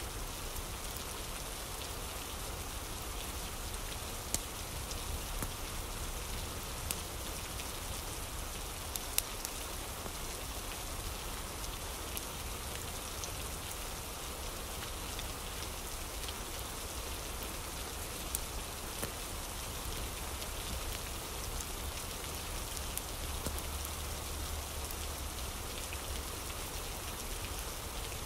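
Steady rain falling, an even hiss of many drops, with a few scattered sharp ticks, at about 4, 9 and 18 seconds in.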